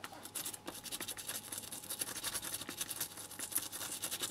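Fast, faint scratchy scrubbing strokes on a circuit board as it is cleaned around the solder joints.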